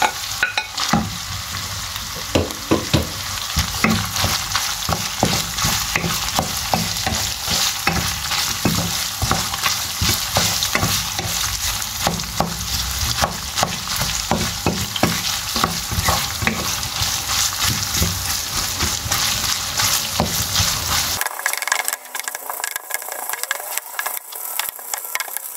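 Minced beef and sliced onions sizzling in a non-stick wok while a wooden spoon stirs and scrapes through them, with many light clicks and knocks of the spoon against the pan.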